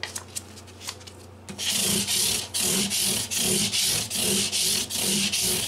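Sandpaper on a scrub block rubbed quickly back and forth across metal guitar frets through a steel fretboard guard, crowning the frets. The strokes start about a second and a half in and come about three a second, after a few light clicks.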